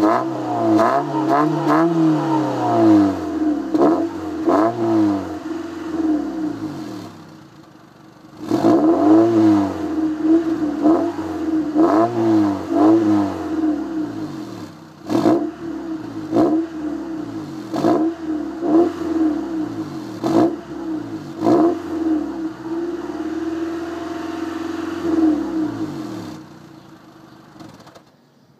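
Car engine revving through a universal HKS-style muffler. The throttle is blipped again and again, so the exhaust note climbs and falls repeatedly. There is a short lull about a quarter of the way in, one rev is held for a few seconds late on, and the engine falls back and goes quiet near the end.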